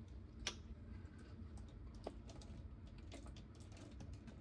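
Faint, scattered small clicks and taps as makeup products and tools are handled, the clearest about half a second in and another around two seconds.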